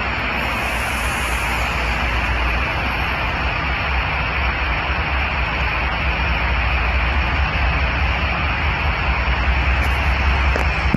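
Steady rumble and rushing noise of a Norfolk Southern freight train rolling past.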